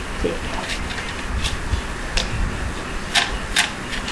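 About five sharp plastic clicks, spaced irregularly, from an airsoft high-capacity magazine being worked by hand, its winding mechanism just starting to catch. Under them is a low rumble of handling close to the microphone.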